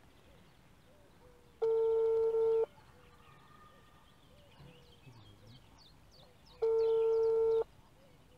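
Telephone ringback tone from a phone: two one-second beeps about five seconds apart, the line ringing at the other end with the call not yet answered. Faint bird chirps in between.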